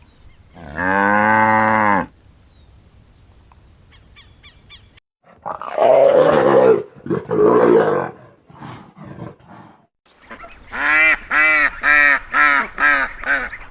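A series of animal calls from different animals, joined by cuts: one long pitched call, then rough, noisy calls, then a quick run of about seven short pitched calls near the end.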